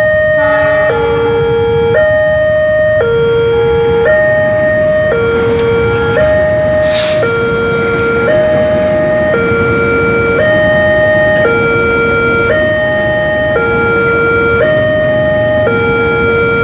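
Railway level-crossing warning alarm sounding a steady two-tone high-low signal, each tone about a second long, warning that a train is crossing. Under it is the continuous rumble of a diesel-hauled passenger train passing, with a brief hiss about seven seconds in.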